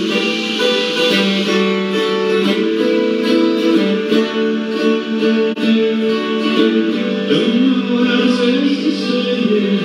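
Acoustic guitar played as live music, a steady run of plucked, ringing notes.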